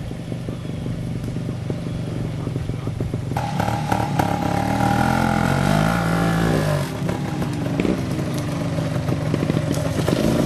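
Vintage trials motorcycle engine running at a steady idle, then, about three seconds in, revving up and down in repeated throttle blips as the bike climbs a steep dirt bank.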